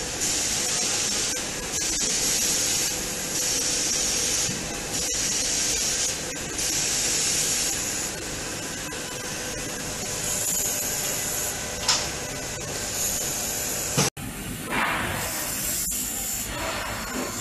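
Handheld fiber laser welding machine welding sheet metal: a steady hiss with a brighter, high hiss coming and going in spells of about a second as each stretch of weld is run, over a faint steady machine hum. About fourteen seconds in it cuts off sharply and a different, rougher hiss follows.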